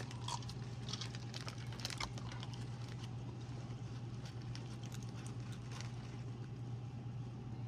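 Scattered light clicks and crinkles of a snack packet of vegetable crackers being handled and opened, busiest in the first couple of seconds, over a steady low hum.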